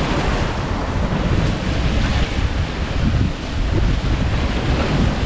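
Wind noise on the microphone over sea surf washing against a rocky shore, a steady loud rush with gusty low rumble.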